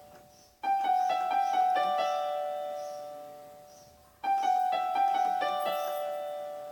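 Piano playing an instrumental passage: two phrases of quick notes, one starting about half a second in and one about four seconds in, each left to ring and fade slowly.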